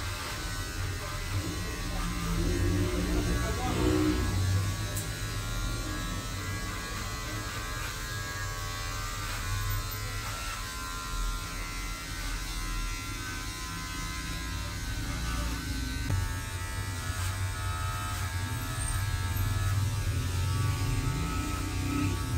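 Electric hair clippers buzzing steadily as a head is shaved.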